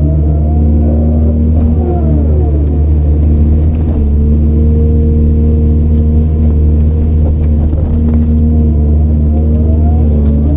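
Heavy earthmoving machine's diesel engine running steadily under load, with a higher whine that rises and falls near the start, about two seconds in and again near the end.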